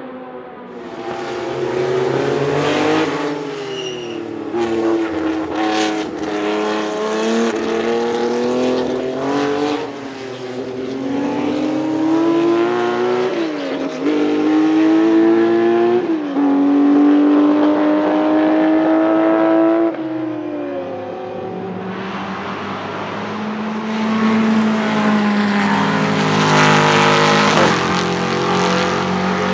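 Racing car engine accelerating hard through the gears: its pitch climbs and drops sharply at each upshift, several times over. Near the end a car passes by at speed, rising and then falling away.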